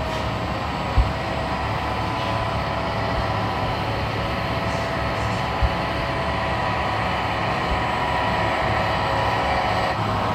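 A radio-controlled scale model of a Fendt tractor running: a steady mechanical hum with several held tones. Two dull low thumps, about a second in and just past the middle.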